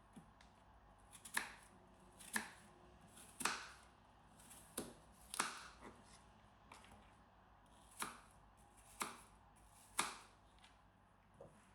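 Knife cutting an apple into small cubes: sharp knocks of the blade coming through to the board, about one a second at an uneven pace.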